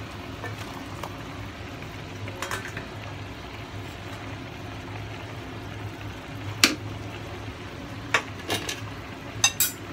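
Sliced onion and then potato chunks dropped into a pot of stewed oxtail on the stove, with a few sharp clinks and knocks of metal, the loudest about six and a half seconds in and several more near the end, over a steady low hum.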